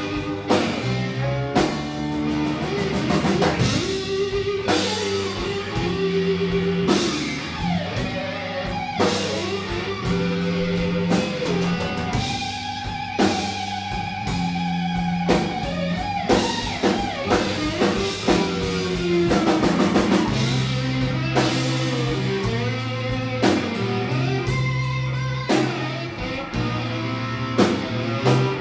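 Live blues band playing an instrumental passage: a harmonica plays bending, sliding notes over electric guitar, electric bass and drum kit, holding one long note about halfway through.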